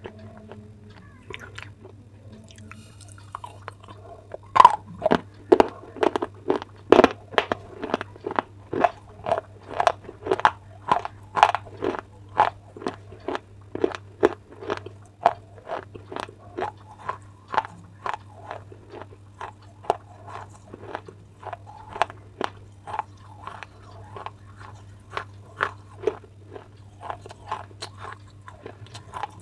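Baked clay pot pieces being bitten and chewed: a quick run of sharp crunches, about two or three a second, that starts about four seconds in and grows softer toward the end. A steady low hum runs underneath.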